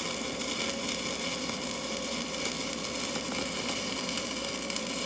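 Stick welding arc on a 7018 electrode burning steadily as a bead is run.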